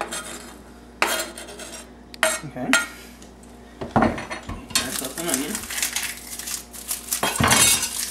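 A kitchen knife scraping diced tomatoes off a cutting board into a mixing bowl, with sharp knocks of the knife and board against the bowl about a second in, twice more a little later and again around four seconds in. This is followed by a longer run of clattering and scraping in the bowl.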